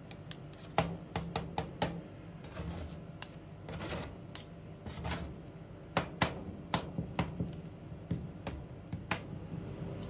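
Two metal spatulas chopping and mashing rolled-ice-cream mix on a stainless steel cold plate: irregular sharp clacks of the blades striking the steel, bunched into quick flurries, with softer scraping between them over a low steady hum.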